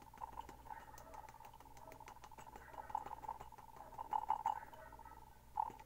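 Baking soda shaken from a cardboard box onto a spoon in a mug, a run of faint ticks and small taps. A steady high-pitched tone runs underneath, swelling briefly a few times.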